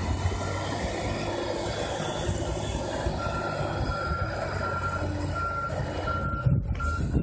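Champion motor grader's reversing alarm beeping over its diesel engine running, which is the sign the grader is backing up. The beeps come about one and a half a second, pause for a couple of seconds, then resume. A rougher, louder rumble rises near the end.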